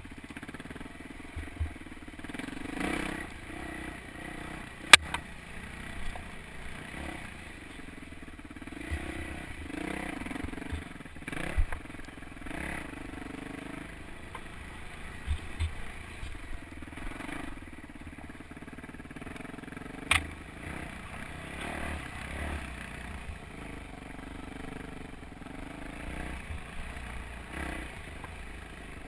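Yamaha YZ426F four-stroke single-cylinder dirt bike engine being revved up and backed off over and over while riding a rough trail, with a few sharp knocks, the loudest about five seconds in and again about twenty seconds in.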